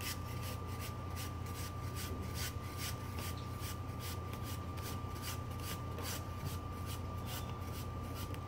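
Chef's knife paring the skin off an apple as the fruit is turned against the blade: a quick, even series of short scraping cuts, several a second, over a steady low hum.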